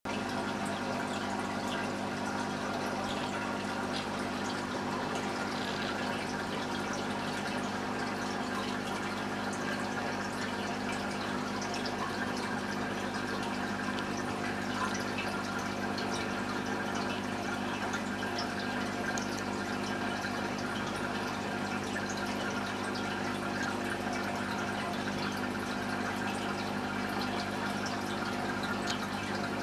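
Aquarium pump running: a steady electric hum with water trickling and faint scattered ticks.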